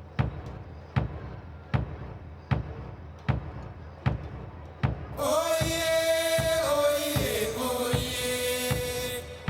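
Background music with a slow, steady bass-drum beat, about one thump every 0.8 seconds. About halfway through, a chanted or sung vocal line of long held notes comes in and fades out shortly before the end.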